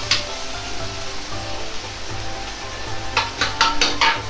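Metal wok ladle scraping and clattering against the wok as sweet bean sauce is stirred into hot oil, over a low sizzle. A quick run of scrapes comes about three seconds in.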